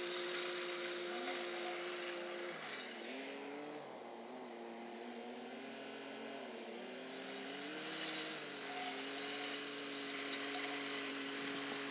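Ford 4000 tractor engine running steadily at a distance while grading a gravel track. Its note dips about three seconds in and then wavers as the load changes, and it grows louder near the end as the tractor comes back.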